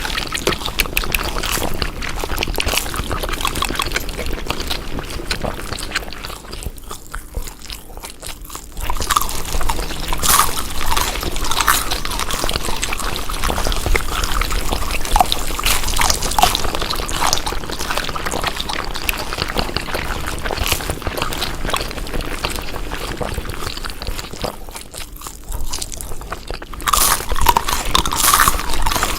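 Close-miked chewing of food: a dense run of crackly clicks and crunches, easing off briefly twice.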